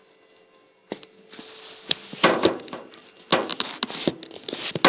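Kitchen items being handled on a counter: after a quiet second, a series of sharp knocks and taps with short rustling stretches between them.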